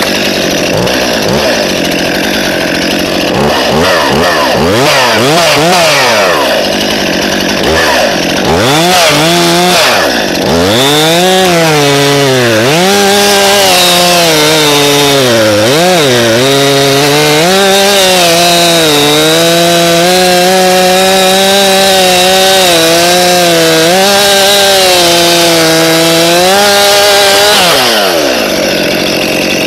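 Stihl MS261 C-M, a 50cc two-stroke chainsaw with stock muffler and bar, revved in quick blips, then held at full throttle cutting through wood for about seventeen seconds, its pitch dipping and recovering under load. Near the end the throttle is released and the engine drops back toward idle.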